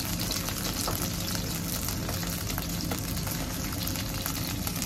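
Salmon fillet frying in a little oil in a non-stick pan, a steady sizzle.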